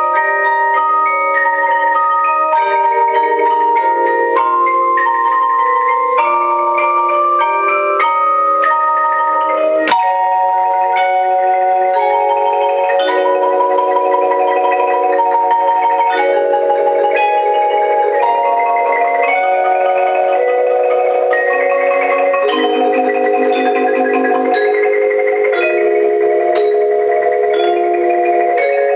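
Live instrumental music on bell-like tuned mallet percussion: ringing notes held in changing chords under a melody line. About ten seconds in there is one sharp struck accent, and the harmony shifts after it.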